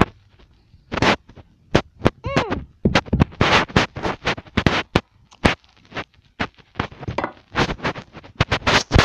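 Irregular scratching, rubbing and knocking on a phone's microphone as it is held and moved about, denser and louder from about three seconds in. A brief high-pitched cry about two and a half seconds in.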